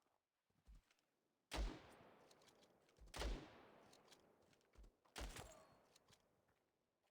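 Three sharp bangs, one roughly every one and a half to two seconds, each dying away in a long echoing tail.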